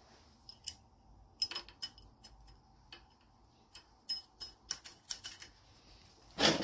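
Irregular light clicks and ticks of a motorcycle throttle cable being pulled out through the handlebar and throttle housing, with a louder knock near the end.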